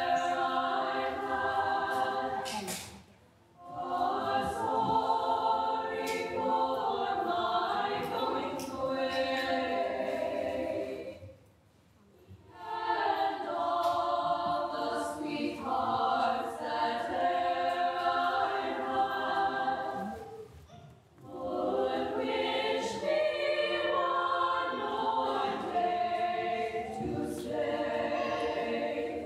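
A small choir of female voices singing, in phrases of long held notes with brief pauses about 3, 12 and 21 seconds in.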